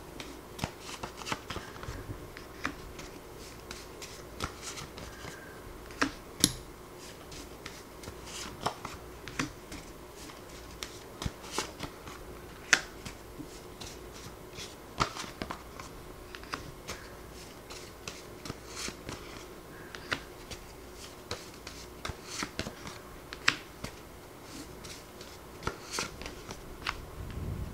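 A stack of small paper word cards handled, with irregular sharp flicks and taps as single cards are peeled off and laid down on tarot cards. A faint steady hum runs underneath.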